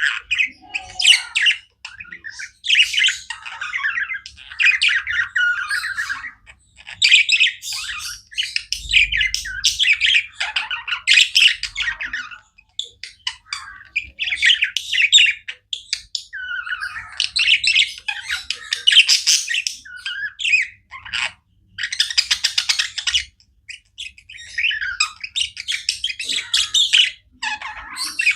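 Budgerigars chirping and chattering in busy clusters a second or two long, with short pauses between them.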